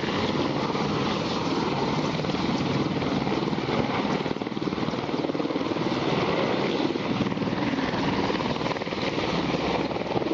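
Helicopter running close by: a steady, loud rapid rotor chop over engine noise.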